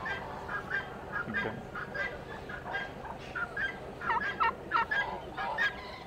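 Many caged poultry, turkeys among them, calling over one another in a steady stream of short repeated calls, with a denser cluster of calls about four seconds in.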